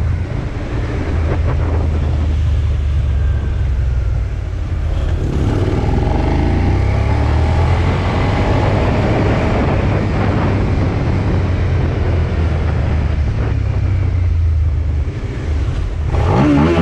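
Motorcycle engine running while riding, with a steady low wind rumble on the camera microphone. Near the end the engine note rises and falls again in a short rev.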